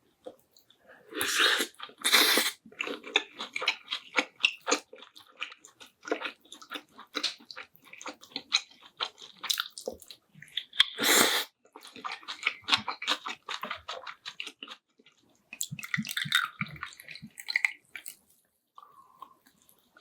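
A person eating close to the microphone: wet chewing and lip-smacking in quick irregular clicks, with a few louder, longer wet slurps about a second in, about two seconds in and around eleven seconds.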